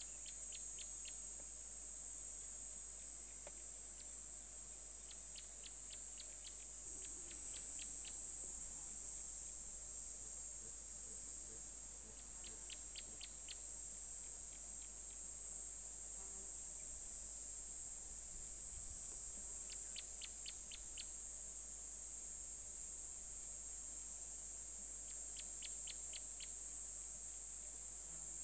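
Steady high-pitched drone of insects, with short runs of quick, evenly spaced chirps every few seconds.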